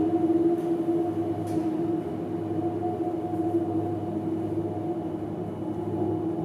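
Droning music: several low tones held steadily together, with no beat and no melody to speak of.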